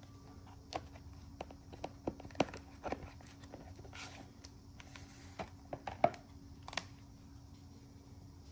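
Cardboard box of a phone case being handled and slid open by hand: scattered light taps and clicks, with a brief sliding rustle about four seconds in, over a faint steady hum.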